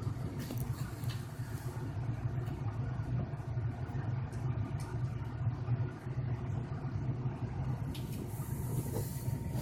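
Domestic cat purring, a steady low rumble that runs on without a break.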